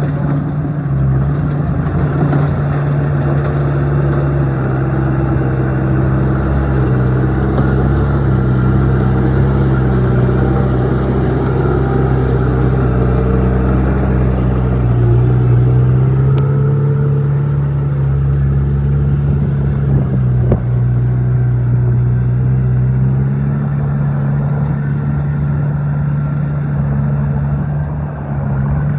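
Old crawler bulldozer's diesel engine running continuously, its pitch sagging for several seconds near the middle and then picking back up, with a single sharp knock about twenty seconds in.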